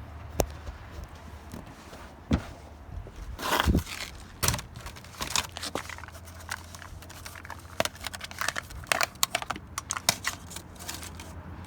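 Motor oil being poured from a plastic bottle through a funnel into the engine's oil filler, with irregular crackling and clicking from the plastic bottle and funnel being handled.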